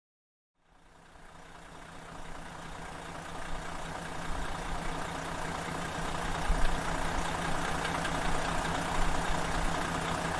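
Heavy engine running steadily with a low rumble and a steady hum, fading in over the first few seconds.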